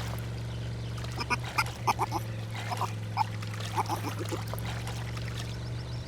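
Cartoon animal sound effects: a series of short, squeaky, quack-like calls over a steady low drone. The calls are most likely a baby otter crying out in danger.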